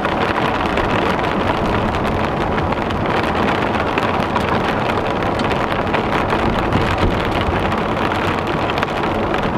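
Heavy rain falling on a moving car, mixed with its tyres on the flooded road, a steady noise heard from inside the car.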